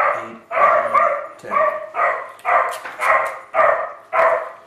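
Dog barking over and over in a steady series, about two barks a second.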